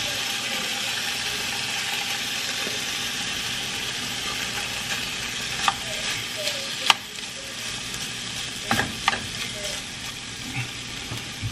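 Corned beef hash sizzling in a hot nonstick frying pan as a metal utensil stirs and scrapes it. A few sharp clicks of the utensil against the pan or can come in the second half.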